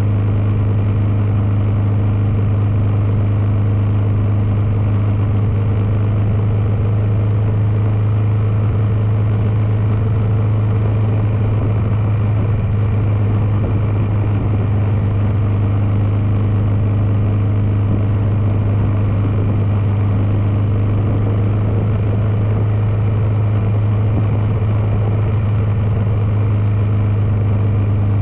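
Kawasaki KLR650's single-cylinder four-stroke engine running at a steady cruise, a constant low hum that holds the same pitch, with wind and road rush over it.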